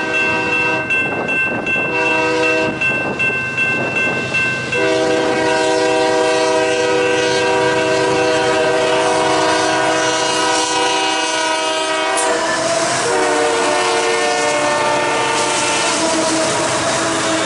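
Locomotive air horn sounding several short blasts, then one long continuous blast. Its chord drops in pitch about two-thirds of the way through.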